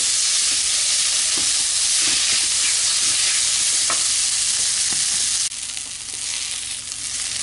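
Chopped spinach, onion and garlic sizzling in ghee in a nonstick pan while being stirred with a silicone spatula, with a few light scrapes and taps of the spatula. The sizzle drops suddenly to a quieter level about three-quarters of the way through.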